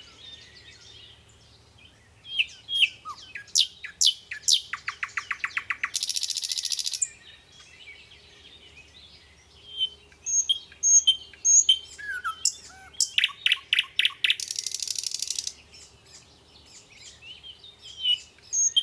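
Small birds chirping and singing, with sharp chirps and whistled notes. Twice a fast buzzy trill lasts about a second, once around six seconds in and again near fifteen seconds.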